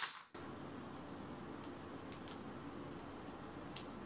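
A few faint clicks and handling sounds as the AKG K371 headphones are folded at their hinges, over a steady room hiss; the sound drops out briefly at the start.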